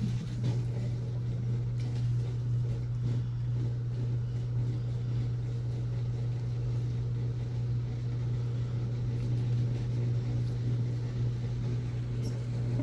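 A steady low mechanical hum that does not change in pitch or level.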